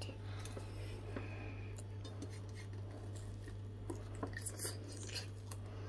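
A few faint clicks and crunches as a toasted cheese sandwich is torn and bitten, over a steady low hum.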